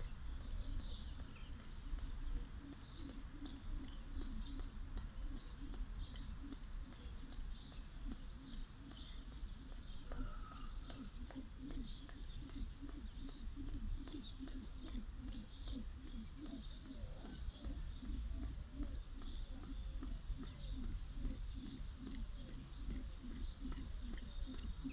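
A 1 lb weighted jump rope turned in quick alternate steps, making a steady, fast rhythm of the rope slapping the ground and shoes landing. Light chirps sound over it, with wind rumbling on the microphone.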